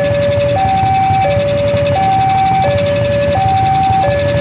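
Railway level-crossing warning alarm sounding a repeating two-tone signal, a lower and a higher tone alternating about every two-thirds of a second, over the low rumble of a passenger train running past the crossing.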